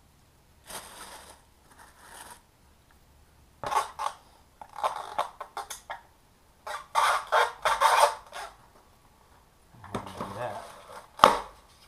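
Packaging being handled in a run of short scratchy bursts: plastic wrap rustling and a styrofoam packing base squeaking and crunching under the hands. There is a single sharp crack near the end.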